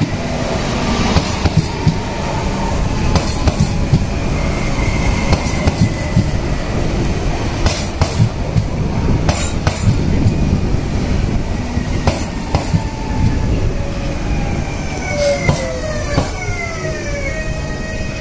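Renfe train running over newly replaced rails, rumbling loudly with repeated hard bangs from the wheels, which the uploader blames on a poor track repair. Several falling whines come near the end.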